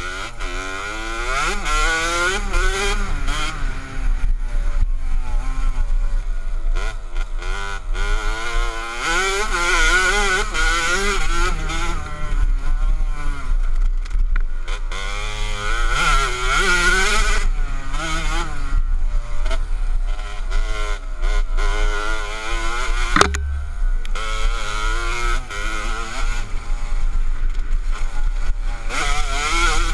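KTM 65 SX two-stroke single-cylinder engine revving hard as the dirt bike is ridden, its pitch rising and falling over and over with each throttle opening and gear change. A single sharp thud a little over two-thirds of the way through.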